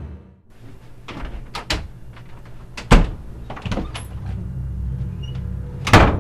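Sharp knocks and clicks at a door, irregularly spaced, with the loudest about three seconds in and another near the end, over a low steady hum.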